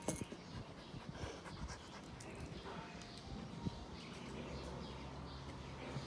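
A dog whining faintly, a few thin high whines, with a low steady hum in the second half.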